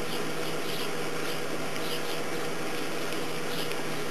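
Oxyhydrogen (HHO) torch flame burning with a steady hiss as it melts rock and glass, over a low steady hum.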